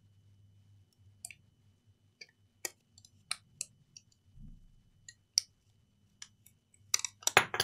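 Scattered small clicks and ticks of a scalpel blade prying and cutting at the plastic casing of a Lenovo laptop battery pack, with a soft bump about halfway and a quicker run of louder clicks near the end.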